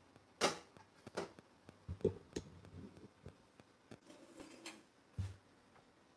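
Kitchen clean-up: a handful of separate knocks and light clatters of utensils and dishes being handled, with a short rustle about four seconds in.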